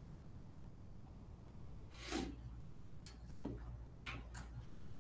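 Faint pen strokes on a tablet screen while points and a curve are drawn: a few short scratches and taps over a low steady hum.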